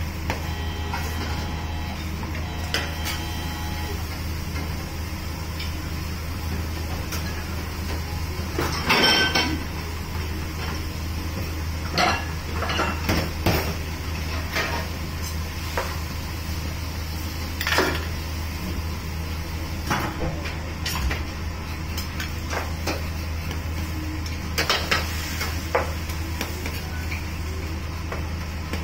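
Steel ladle clanking and scraping against a wok while noodles and vegetables are tossed in broth over a gas burner, with irregular metal clanks, a loud cluster about nine seconds in. A steady low hum runs underneath, and two short tones sound near the start.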